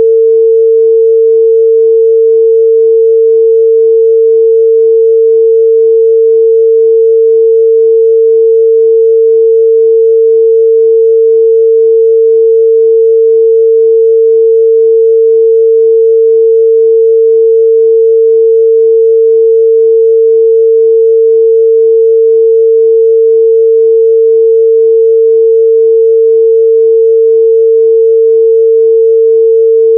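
A pure 451 Hz sine test tone, held steady and loud at one pitch with no change.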